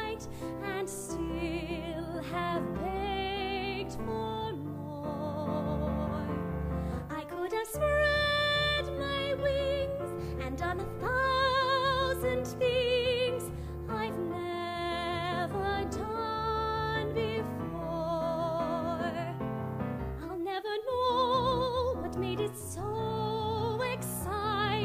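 Live music from a small accompanying band and piano, with melody lines carrying a wide vibrato over a steady low accompaniment.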